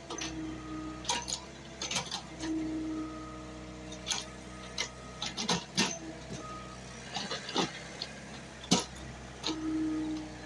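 JCB excavator running steadily, with a whine that rises and drops away several times and repeated sharp knocks and clanks, the loudest about two seconds before the end.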